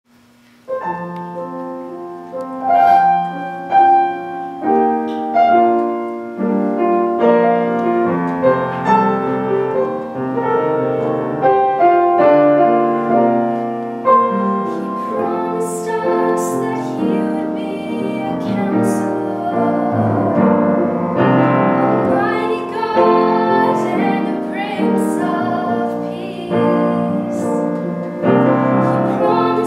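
Upright piano playing a slow ballad accompaniment, note by note, from about a second in. Partway through, a woman's voice joins it singing with vibrato.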